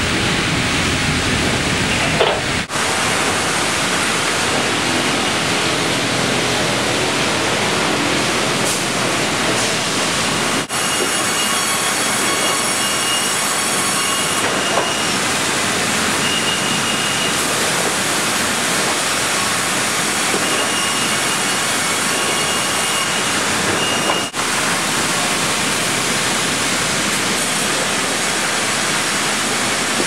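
Loud, steady din of a sawmill's main production line: saws, conveyors and rollers running together, with short high-pitched whines now and then.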